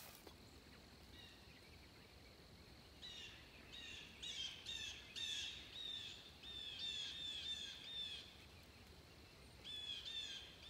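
A songbird singing faintly, with runs of repeated, downward-slurred whistled notes at about three or four a second. The song starts about three seconds in, stops briefly, and resumes near the end.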